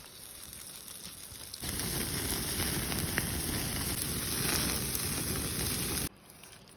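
Campfire crackling, with beef short ribs sizzling over the flames: a dense, loud crackle and hiss that cuts in suddenly about a second and a half in and stops abruptly near the end. Before it comes a quieter stretch.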